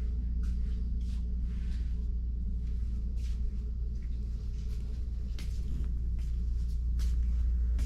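Steady low rumble of a vehicle heard from inside the cab, with a few faint scattered clicks.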